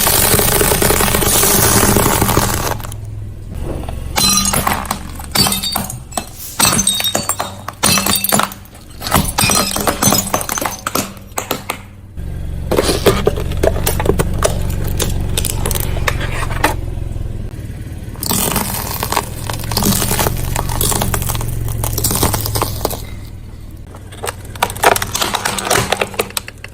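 Objects cracking and breaking under a car's tyres: a long run of sharp crunches and snaps, some with a glassy clink, over a steady low rumble.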